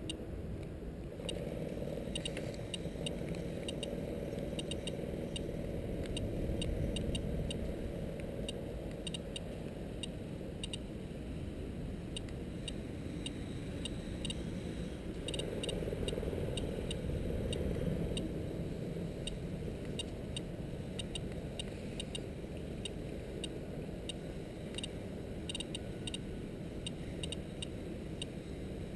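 SOEKS Geiger counter clicking at irregular intervals, a few clicks a second, each click a detected particle, while it reads about 1.1 µSv/h and flags a high radiation background. Under the clicks runs a steady low rumble.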